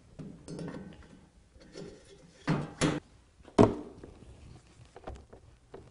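Motorcycle front fork tube being fitted back up into its clamps: some handling and shuffling, then two clunks close together about two and a half seconds in and a louder clunk about a second later.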